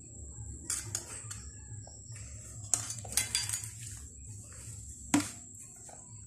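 Metal spoon clinking and scraping against a plate of rice as it is handled, a few sharp clinks, with the loudest knock about five seconds in as the plate is set down on the floor mat.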